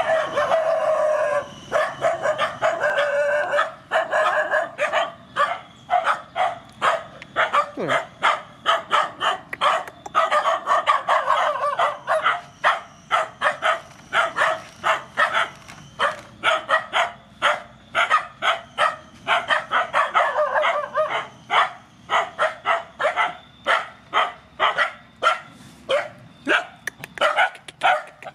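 Animal cries repeated rapidly, several a second, without a break; the calls are fuller and more drawn out at the start and around the middle.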